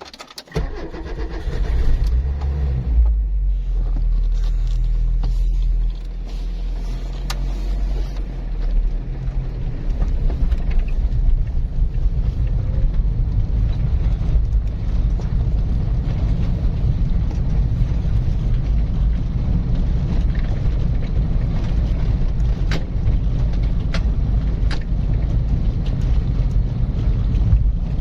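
A car engine starting, idling with a steady low rumble, then running as the car drives, with a low steady hum of engine and tyre noise.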